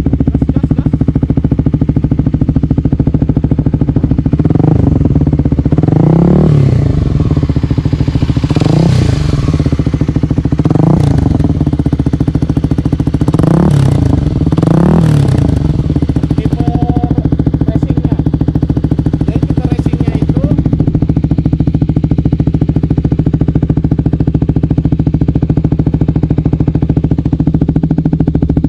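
Kawasaki Ninja 250 SL single-cylinder engine running through a 3Tech Tridente Spartan F20 aftermarket exhaust in silent mode, its butterfly valve only partly closed. The throttle is blipped about six times in the first half, each rev rising and falling, then it settles back to a steady idle.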